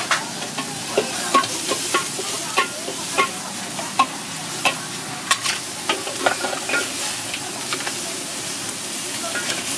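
Mud crab pieces sizzling in a hot wok while being stir-fried, with a steady hiss and a metal utensil knocking and scraping against the wok at irregular intervals, about once or twice a second.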